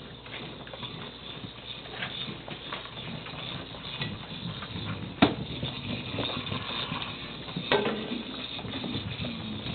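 Scattered clicks and knocks on a tiled floor as a motorized toy ball rolls and bumps about and ferrets chase it. The loudest knocks come about five seconds in and near eight seconds.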